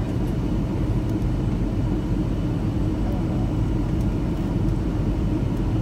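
Steady low rumble of jet engine and airflow noise inside a Boeing 737 airliner's cabin on descent, with a faint steady whine above it.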